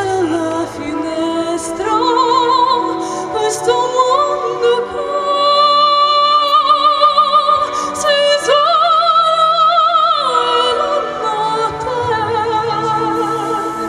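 A female pop singer sings through a microphone over a backing track. She holds long notes with wide vibrato, and her line climbs in steps.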